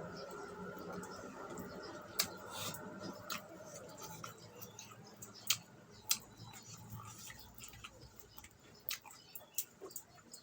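A person chewing pork fat, with scattered sharp, wet mouth clicks. A faint steady hum underneath dies away after about four seconds.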